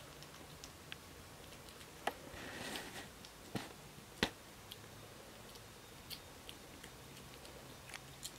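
Scottish Fold kitten chewing and eating chicken pieces, a scatter of small wet clicks from its mouth. A few sharper clicks come near the middle.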